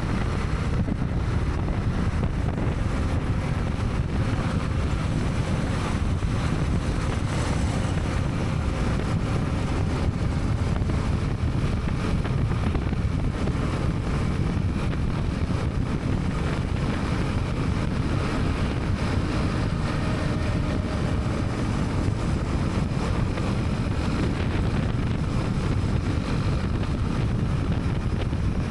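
Steady wind rush on a helmet-mounted action camera's microphone, with a Honda CB300R single-cylinder motorcycle running beneath it while riding.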